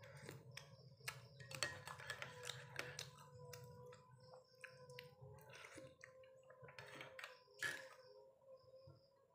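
Quiet sounds of sipping coffee from a spoon and eating bread: a spoon tapping a ceramic mug and small clicks and slurps, clustered about two to three seconds in, with one sharper click near the end, over a faint steady hum.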